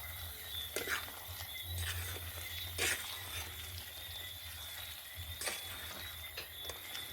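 Night insects trilling steadily at a high pitch over a low hum, with a few faint sharp clicks.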